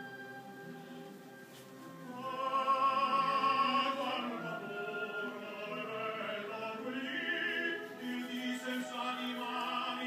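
Opera music playing, a singing voice with held, wavering notes over instruments, growing louder about two seconds in.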